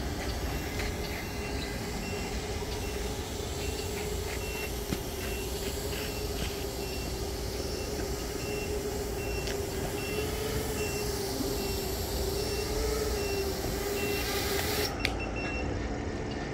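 Short high-pitched warning beeps repeating steadily from an FPV radio controller, over a continuous hum that wavers slightly in pitch and outdoor background noise.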